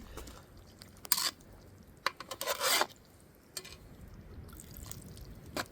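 Cookware being handled over a pot of stew: a few short scrapes and rubs, about a second in and again around two and a half seconds in, with a couple of light clicks.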